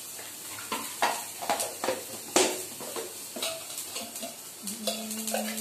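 Metal spoon scraping and tapping around a metal kadhai while mustard seeds, green chillies, capsicum and dried curry leaves sizzle in a little oil on a gas flame. The scrapes come irregularly through the first few seconds, and a steady low hum comes in near the end.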